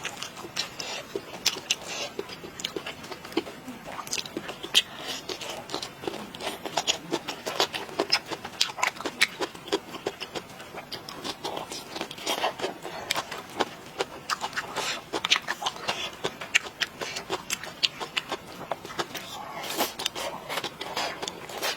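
Close-miked eating: chewing and mouth sounds with many irregular sharp clicks and crackles.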